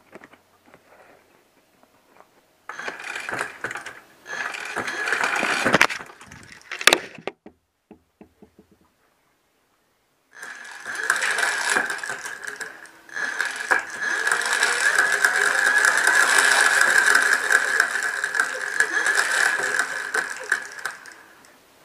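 Magic Pie III electric hub motor spinning the rear wheel off the ground at part throttle, with a steady whine over a mechanical rattle from the chain and pedals it drags round. The dragging is the sign of a faulty freewheel. There is a short run about three seconds in, then a longer one from about ten seconds in that stops near the end.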